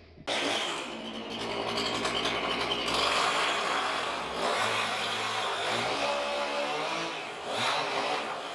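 Power saw running and cutting through a rotten, termite-eaten wooden barn post. The motor's pitch dips and recovers about six seconds in, as the saw works through the wood.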